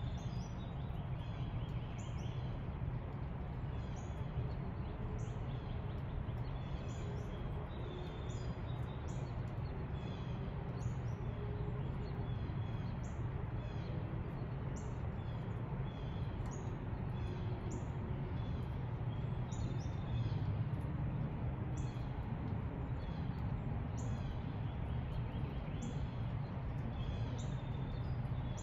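Songbirds chirping repeatedly in short, high, downward-sliding notes, several every few seconds. Under them runs a steady low rumble.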